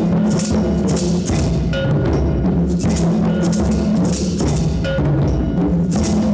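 Children's hand-drum ensemble playing: tall hand drums struck by hand under the steady rattle of beaded shakers, which repeat about twice a second.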